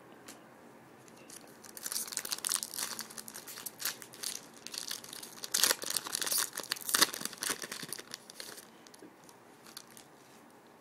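A trading-card pack wrapper being torn open and crinkled by hand, with a dense crackling that starts after about a second and a half, peaks in the middle and dies away about two seconds before the end.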